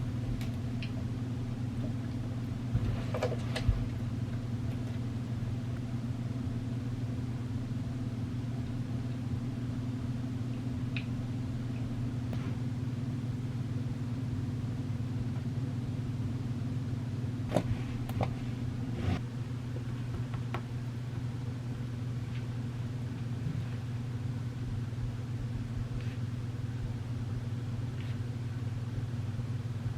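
Steady low hum of a running road vehicle, with a few faint clicks and knocks about three seconds in and again around seventeen to nineteen seconds.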